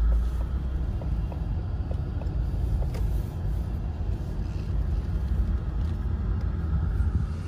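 Car driving slowly, a steady low road and engine rumble heard from inside the cabin, with a few faint clicks.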